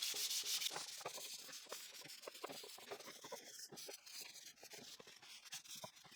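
Hand sanding wood with 220-grit sandpaper: quick back-and-forth scratching strokes, strongest in the first second, then fainter scratching and light ticks.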